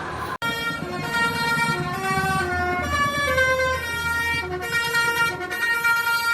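A bus's 'telolet basuri' multi-tone musical air horn plays a melody of several notes that step up and down in pitch, starting just after a brief cut. A low engine rumble runs underneath.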